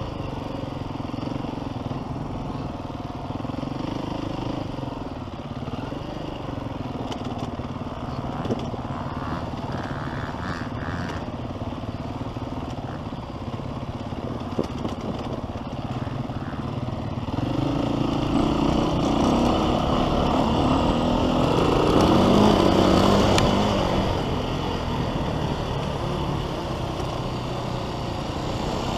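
Dirt bike engine running under way on a motocross track, heard from the bike being ridden. It gets louder about two-thirds of the way in as the engine is revved harder, then eases off near the end, with a couple of brief clicks earlier on.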